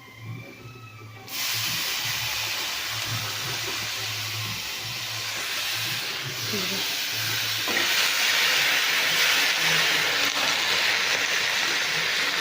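Chopped safflower greens sizzling in hot oil in a kadhai: a loud, steady hiss starts suddenly about a second in and grows louder about eight seconds in.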